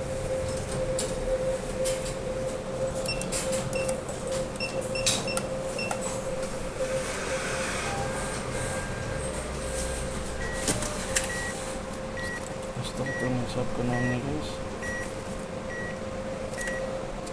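Cash-deposit ATM beeping over a constant machine hum: a few short irregular high beeps in the first third, then a steady run of repeated beeps about twice a second from about halfway on, with scattered clicks and handling knocks.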